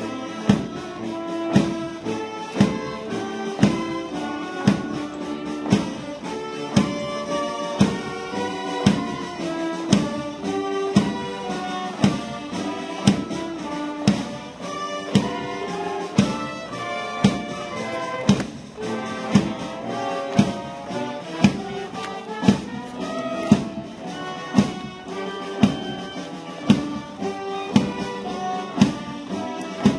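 Brass band playing march music, with a strong drum beat about once a second under the brass melody.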